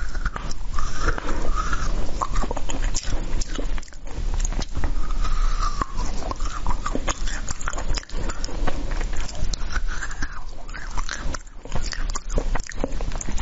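Frozen hawthorn fruits being bitten and chewed: a dense run of crisp, crunchy cracks as the icy berries break between the teeth.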